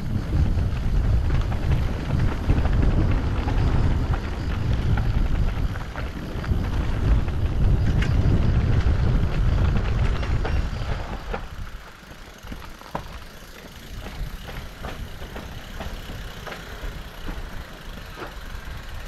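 Mountain bike riding at speed: wind rumble on the microphone and tyre noise for about eleven seconds. It then eases to a quieter stretch of scattered clicks and rattles from the bike.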